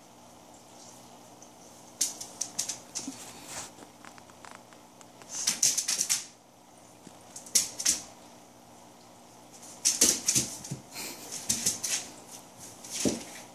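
A plastic bag crinkling and rustling in several short bursts as dogs push it around on the floor, with quieter stretches in between.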